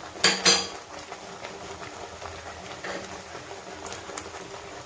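Metal spoon clinking twice sharply against a karahi, then a few lighter taps and scrapes as spices are added and stirred into the masala paste.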